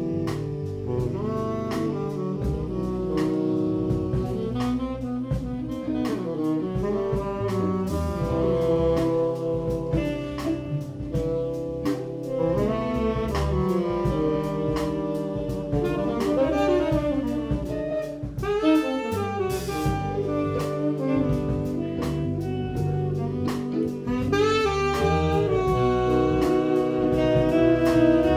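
Live jazz: a section of four saxophones playing together over a drum kit.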